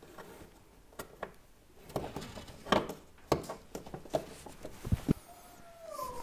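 Plastic clicks and rustling of hands handling wiring and fitting a fuse holder cap under a car's dashboard: a few short sharp clicks, the loudest about three seconds in, with a faint falling tone near the end.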